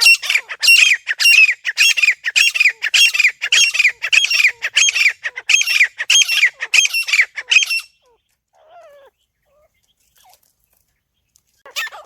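Francolin (teetar) calling: a fast series of loud, harsh, repeated calls at about two a second for some eight seconds. The calls stop suddenly and are followed by a few faint, softer notes. A new call starts right at the end.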